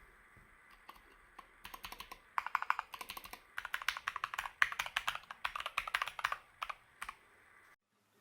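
Typing on a Keychron K2 mechanical keyboard: a few single key clicks, then quick runs of keystrokes in bursts, tapering to a few last presses before cutting off suddenly near the end.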